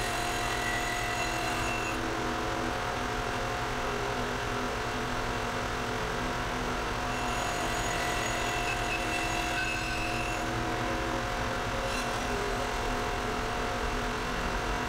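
Band saw running steadily while an automated sled feeds a segmented-ring blank through the blade, slicing off thin discs. A steady mechanical run, with faint high tones that come and go.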